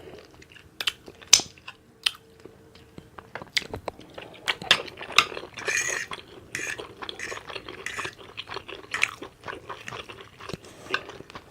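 A person eating with open-mouthed chewing and lip smacking: irregular short clicks and smacks, with a brief louder smacking patch about six seconds in.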